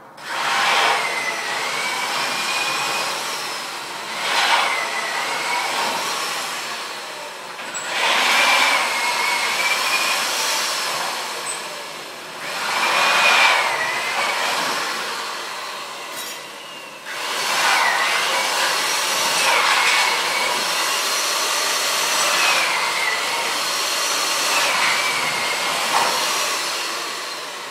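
Electric grinder working on steel in repeated passes, about every four to five seconds. Its high whine dips in pitch under load with each pass and recovers between passes.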